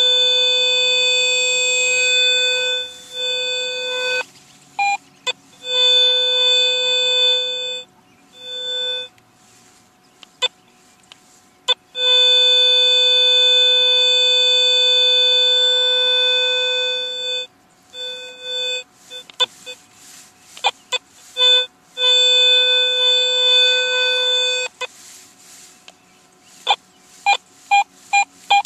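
Garrett AT Pro metal detector sounding a steady buzzy tone over a buried target; the tone holds for a few seconds at a time, breaks off and comes back several times, and turns into a run of short blips near the end. The erratic response is the detector failing to pinpoint an iffy target, which turns out to be a penny.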